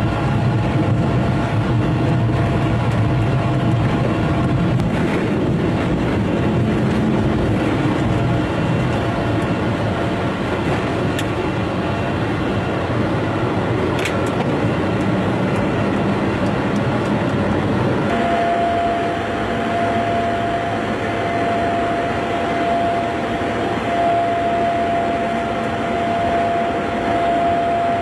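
Steady roar of jet engines and airflow heard inside a jet's cockpit, with a heavier low rumble over the first several seconds. A steady high tone comes in about two-thirds of the way through and holds.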